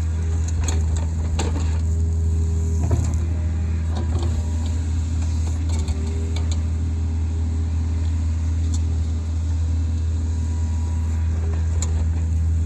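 Kobelco SK55 mini excavator's diesel engine running steadily under work, with scattered light clicks and knocks over the top.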